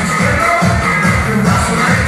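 Loud dance music from a DJ set, with a pulsing, repeating bass line and sustained synth notes above it.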